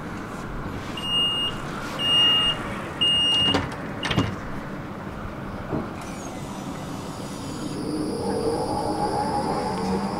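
Tram's door-closing warning: three short high beeps about a second apart, then a thud as the doors shut. A few seconds later the electric traction motors start to whine, rising in pitch as the tram pulls away.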